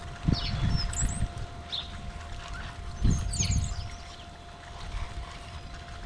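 A large flock of small songbirds feeding on the ground, giving scattered short high chirps, over irregular low rumbling from wind on the microphone and a faint steady hum.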